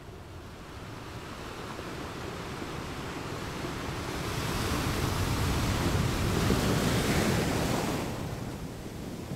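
Ocean surf breaking and washing up a sandy beach. The rush of water swells to its loudest just past the middle and eases off near the end.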